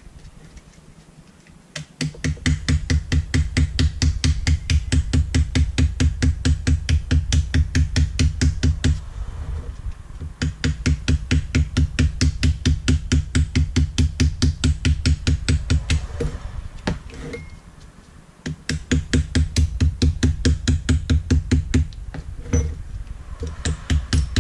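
Small hammer tapping rapidly and lightly on gasket paper laid over a carburettor flange, about five taps a second, cutting a new gasket against the metal edge. The taps come in three or four long runs with short pauses between.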